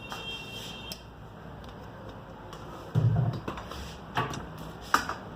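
Light clicks and taps of a smartphone's small parts being handled, with a short low buzz about three seconds in.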